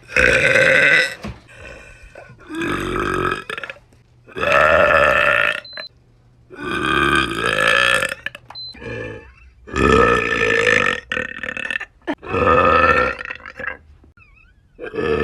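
A woman burping loudly and repeatedly: six long burps about one every two seconds, with a seventh starting at the very end.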